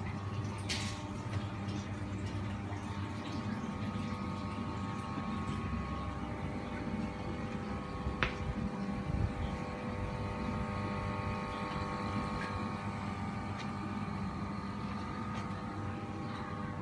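A packaged medical wastewater treatment plant's machinery running: a steady hum with several held tones. Two brief sharp clicks come, about a second in and about eight seconds in.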